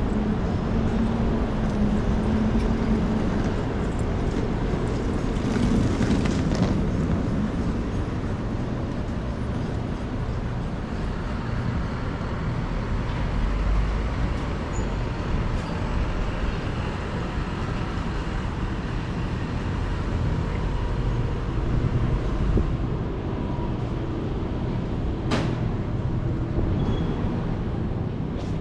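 City street traffic: a steady low rumble of passing cars and trucks, with a single sharp click near the end.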